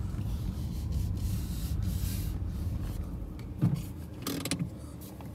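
Low, steady rumble inside the cabin of a 2019 Ford Fiesta rolling slowly, with a few light knocks in the last two seconds.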